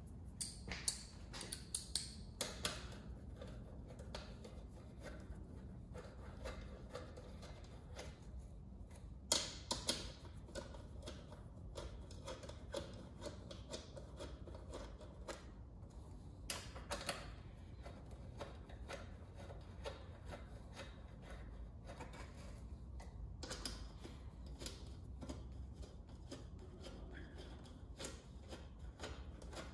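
Small socket wrench with an 8mm socket clicking in quick runs as the rear rack bolts are turned in and tightened, with a few sharper metal clinks in the first few seconds and again about nine seconds in.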